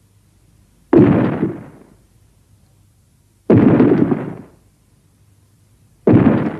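Monster sound effect: three heavy booming crashes, about two and a half seconds apart, each starting suddenly and dying away over about a second.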